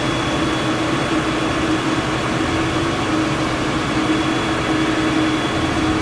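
Fire engines' engines and pumps running steadily: a constant mechanical hum with a faint, steady high whine.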